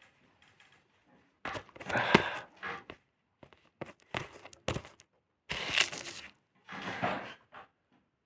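A person sneezing several times in quick succession, each sneeze a sharp, noisy burst.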